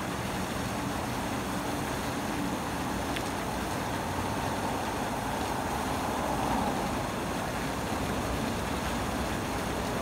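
Steady rumble of road traffic, swelling slightly about six seconds in.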